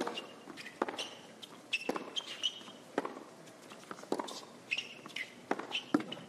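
Tennis rally on a hard court: a serve, then a string of sharp racket-on-ball strikes and ball bounces about once a second, with short high squeaks of tennis shoes on the court between them.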